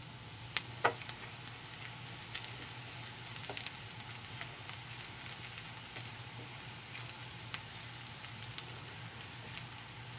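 Sliced onions sizzling and crackling in hot oil in a nonstick frying pan while being stirred with a silicone spatula, with two sharp clicks about half a second to a second in.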